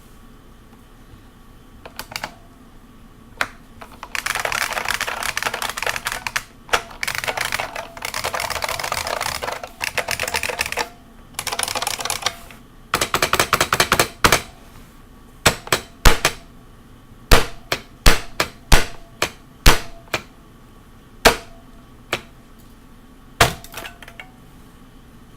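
IBM Model M buckling-spring keyboard being typed on fast, in dense bursts of clicking keystrokes. Past the halfway point the bursts give way to a series of separate, louder single key strikes.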